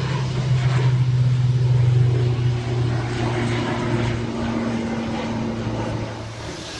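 Jet airliner engines passing, a loud low steady rumble that peaks about two seconds in and then gradually fades.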